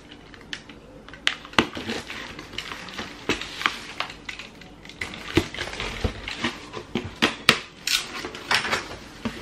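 A cardboard shipping box being opened: a box cutter slitting the packing tape, with crackling tape and scattered clicks and knocks as the cardboard flaps are pulled open.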